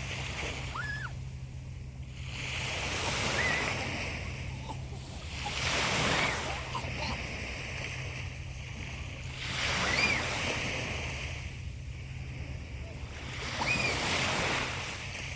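Sea waves washing onto the shore, swelling and receding in four surges about every four seconds. A few short high chirps and a steady low hum run underneath.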